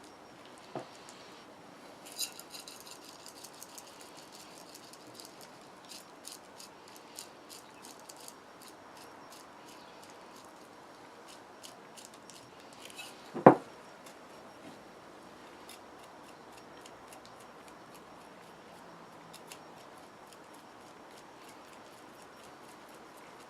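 Faint, scattered ticking and pattering of dry steak spice mix and mustard seeds being sprinkled and rubbed onto a raw beef roast, with one louder knock about halfway through.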